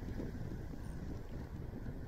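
Wind buffeting the microphone: a steady, low rumble with no distinct events.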